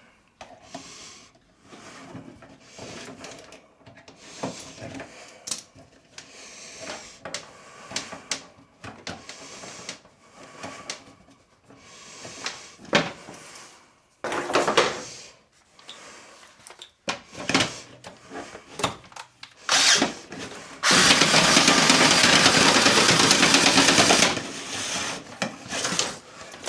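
Scattered knocks and clatter of handling, then about 21 seconds in a power drill runs at full speed for about three seconds and stops abruptly, spinning a dryer-vent cleaning brush.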